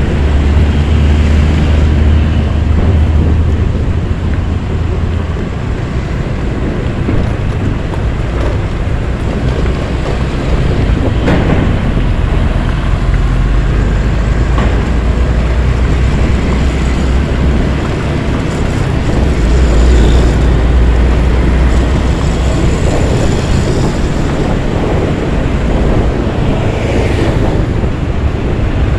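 Heavy traffic heard from a slow-moving Honda Beat scooter: a steady low rumble of nearby truck diesel engines and the scooter's engine, with road noise, swelling and easing as trucks pass close.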